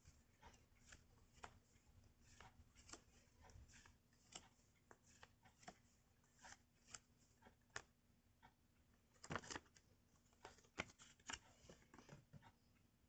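Faint rustling and light taps of small folded paper pocket timetables being handled and swapped in the hands, with a louder crackle of paper about nine and a half seconds in.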